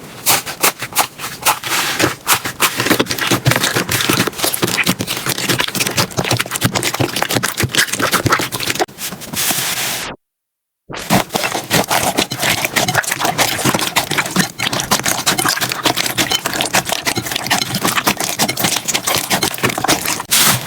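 Slime being handled, making dense, fast crackling and popping clicks. The sound cuts out completely for under a second about halfway through, then carries on.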